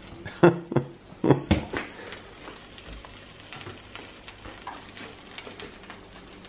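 A large spatula knocking and scraping against a nonstick frying pan as an omelet is folded over, a handful of clatters in the first two seconds, then a faint steady sizzle of the omelet frying.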